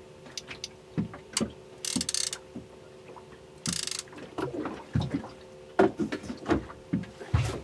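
Fishing reel's ratchet clicking in two short bursts as the rod is worked, with scattered knocks of the rod and tackle against the boat and a faint steady hum underneath.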